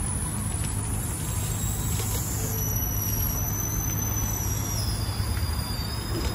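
A large vehicle's engine running steadily at idle: a low rumble over a steady hiss.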